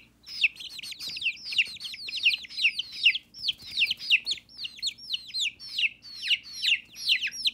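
Several baby chicks peeping: a rapid, overlapping run of short, high calls, each sliding down in pitch.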